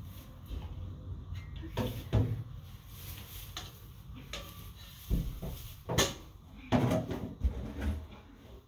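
Irregular hollow knocks and thumps of a plastic barrel fitted with a clamp heat lamp being handled and shifted, a pair about two seconds in and a louder cluster after the middle.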